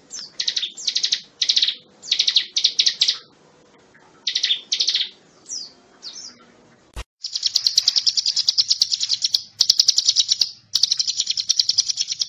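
Ciblek gunung (a prinia) singing: short, sharp high chirping phrases, then a single click about seven seconds in, followed by a long, fast trill of high repeated notes that breaks off briefly twice.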